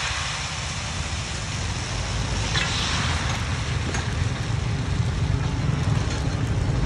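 Yellow pancake batter sizzling and bubbling in a hot wok, with a steady low rumble underneath.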